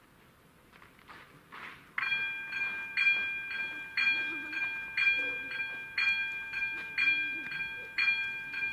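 Electronic level crossing warning bell starting up about two seconds in, ringing about twice a second: the crossing's warning has switched on for an approaching train.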